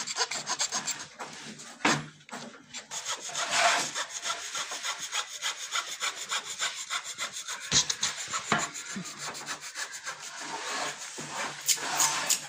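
Steel hand blade shaving a wooden brace glued to a guitar soundboard, in quick, regular scraping strokes, with a couple of sharper knocks about eight seconds in.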